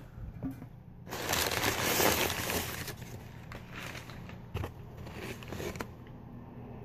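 Crumpled newspaper packing being handled in a styrofoam-lined shipping box: a loud crinkling rustle lasting about two seconds, then a few short, lighter rustles.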